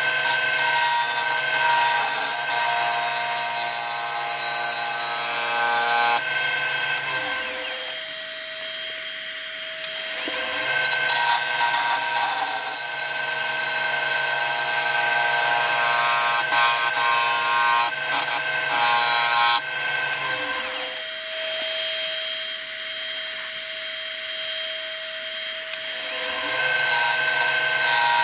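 Wood lathe running with a 3/8-inch bowl gouge cutting a spalted beech blank: a rasping hiss of the cut over the steady hum of the motor. The lathe winds down to a stop about seven seconds in and again about twenty-one seconds in, starting up again a few seconds later each time.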